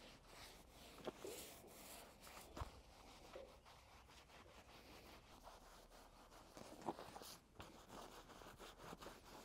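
Near silence, broken by a few faint clicks and rubs of hands and a spray bottle working along a steel truck frame.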